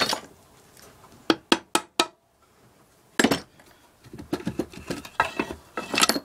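Metal engine parts and tools clinking and clattering as they are handled and set down: four sharp taps a little over a second in, another around three seconds, then a run of rattling clinks near the end.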